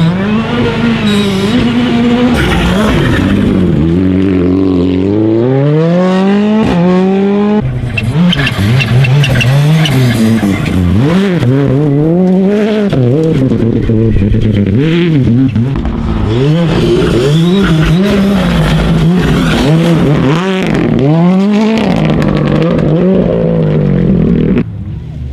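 Rally car engines revving hard through the gears on a gravel stage, the pitch climbing and falling back at each gear change, with gravel noise from the tyres. Several cars go past in turn.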